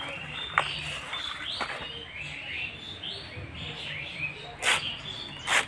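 Small birds chirping over and over in short, falling calls. Two sharp strokes near the end, the loudest sounds, from a dao blade cutting banana leaves against a concrete slab.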